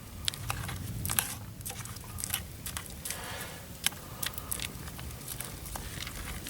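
A spoon stirring noodles and water in a cooking pot: irregular clicks and scrapes of the spoon against the pot, a few each second.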